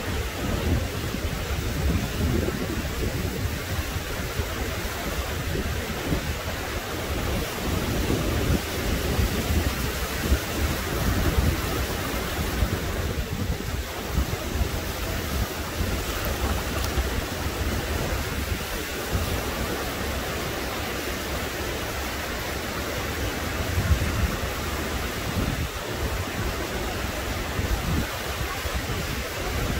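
Ocean surf breaking and washing up over a shallow sandy beach, a steady rushing wash that swells and eases with the waves. Wind buffets the microphone with a low rumble underneath.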